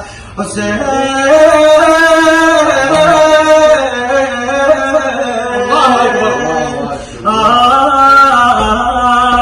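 A male voice chanting long, wordless 'aah' sighs in a slow lament style, holding and bending notes, with a short break for breath just after the start and another at about seven seconds.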